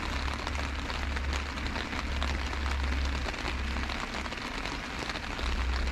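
Heavy rain falling on harbour water and a concrete pier: a dense, even patter of drops with a steady low rumble underneath.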